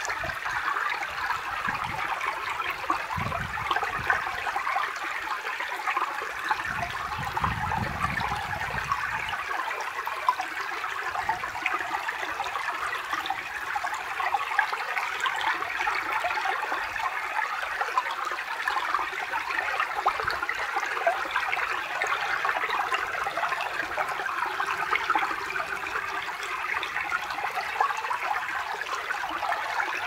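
Small forest stream babbling steadily over logs and stones, a dense, even trickling without pause.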